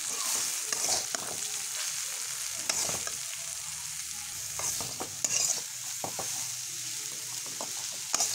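Shredded cabbage sizzling in hot oil in a metal wok while a metal spatula stirs and scrapes it, with louder scrapes against the pan now and then. This is the cabbage being stir-fried into the spiced masala for momo stuffing.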